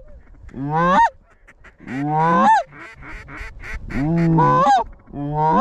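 Goose honks: four loud, drawn-out calls, each sliding up from a low note into a high break, spaced about a second apart.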